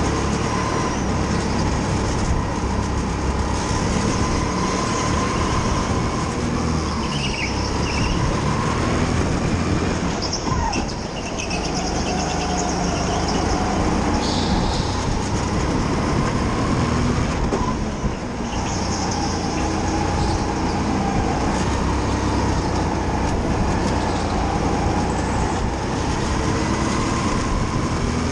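Go-kart running flat out around an indoor track, heard on board: a steady drive drone whose pitch rises and falls with speed, dipping briefly twice as it slows for corners.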